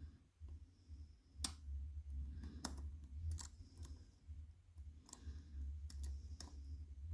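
Small sharp metallic clicks from a lock pick working the pins of a challenge lock, about seven of them at uneven intervals, over a low rumble of handling noise.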